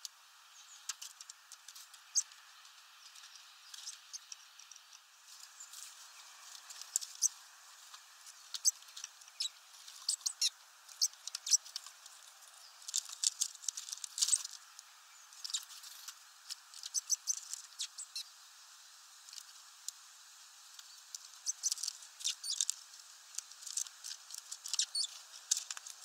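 Great tits pecking and hammering at seeds on a feeder tray: irregular clusters of sharp taps and clicks, with a brief flutter of wings about midway.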